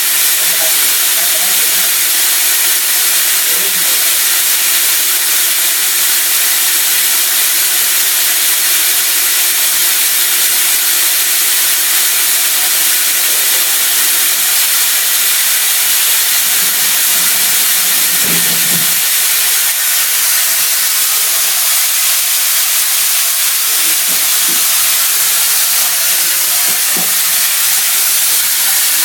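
Coolant spraying inside a Haas CNC milling machine: a loud, steady hiss. A faint steady tone under it stops about halfway through, and a few soft knocks come later.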